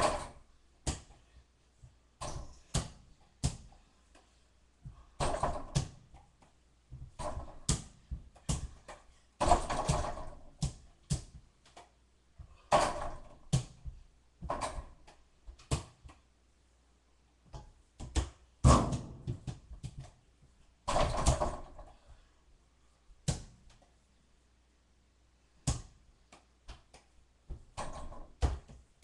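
A small ball bouncing and knocking against a door-mounted mini basketball hoop and the door, in a string of irregular thuds and knocks.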